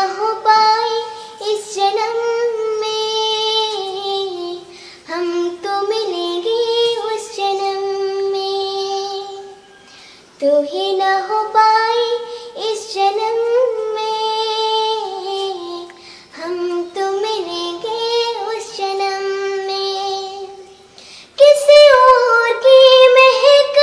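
A young girl singing a song solo, in long phrases with short breaths between them. About 21 seconds in she starts a louder, higher phrase.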